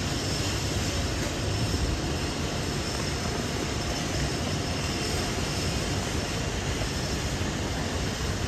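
Steady city-street background noise: a constant low rumble, like traffic, with a faint thin tone running through it and no single event standing out.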